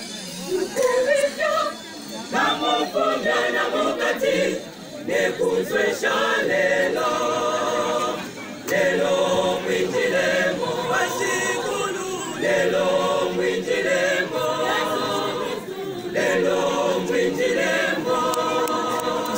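Mixed choir of men's and women's voices singing a hymn a cappella, in phrases of a couple of seconds with short breaks between them.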